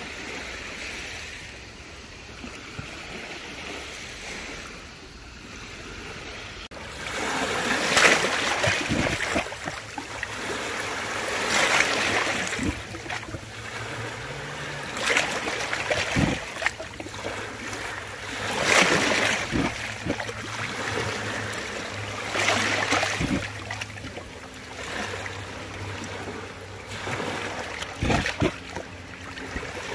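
Sea waves breaking on the beach. After a quieter first few seconds, the surf swells and washes in every three to four seconds.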